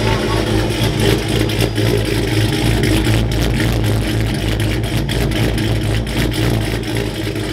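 Dodge RAM 1500 R/T's 5.7 Hemi V8 running, heard through its new Karnage Series 1 mufflers, X-pipe and 3-inch exhaust out of a side-exit tip. It gives a loud, aggressive exhaust note that pulses steadily.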